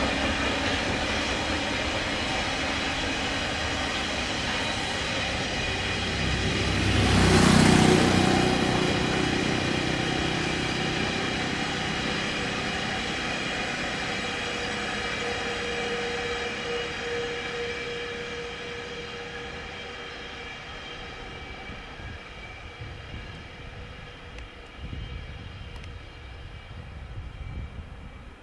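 Freight train of oil tank wagons hauled by an EF210 electric locomotive rolling along the tracks: a steady rumble of wheels on rail with a ringing of steady metallic tones. A louder pass swells and falls away about seven seconds in, and the train then fades gradually as it moves off.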